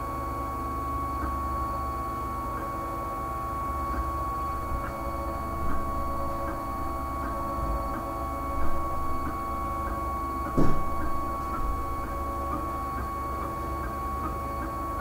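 Home-built wooden-frame 3D printer running while it prints: a steady high whine with light ticks roughly once a second as the print head moves. A few louder knocks stand out, the loudest about ten and a half seconds in.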